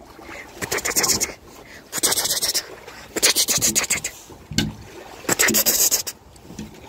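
Scraping and rubbing against the glass front of a badger's enclosure, in about five short bursts with quiet gaps between them.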